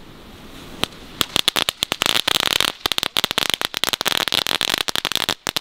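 Category 1 ground-bloom firework with crackle burning on the ground. A faint hiss for about a second, then a fast, dense run of crackling pops that stops near the end.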